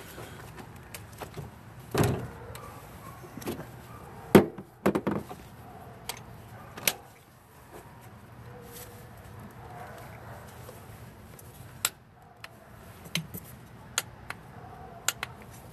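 Hand tools working on a spark plug under a car's hood: a torque wrench and socket being fitted and turned to tighten the plug to about 15 foot-pounds. About eight scattered sharp metallic clicks and knocks, the loudest about four and a half seconds in.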